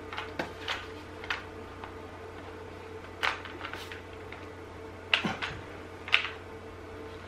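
Scattered clicks, taps and short rustles as the parts and packaging of an unboxed sprayer kit are handled, the loudest knocks about five and six seconds in. A steady low hum runs underneath.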